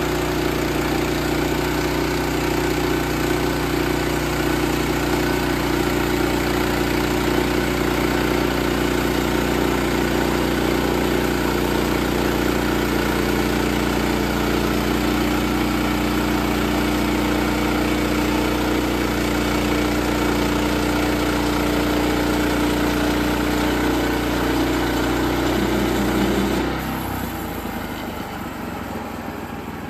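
Sawmill's gas engine running at a steady speed. About 27 seconds in the sound suddenly drops away to a quieter, rougher running.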